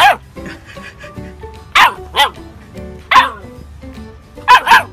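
Golden retriever puppy barking in six short barks, each falling in pitch, over background music.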